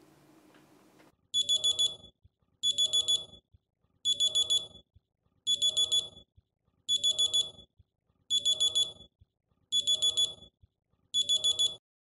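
Smartphone alarm going off: groups of four quick, high electronic beeps, repeating eight times about every second and a half. It starts about a second in and stops just before the end.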